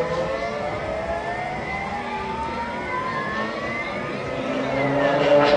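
Drive motors of a CNC textile cutting machine on a test run, whining in several tones that glide slowly up and down in pitch as the axes speed up and slow down; louder near the end.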